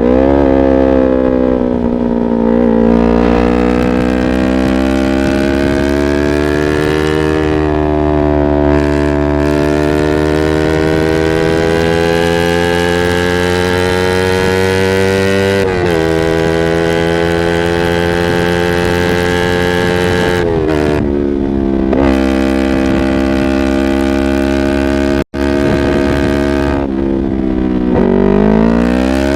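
Yamaha R25's parallel-twin engine through a Proliner aftermarket exhaust, under way: the revs climb slowly for more than ten seconds, drop sharply about halfway through at a gear change, build again, and then fall and rise through further shifts near the end. The sound cuts out for an instant about three-quarters of the way through.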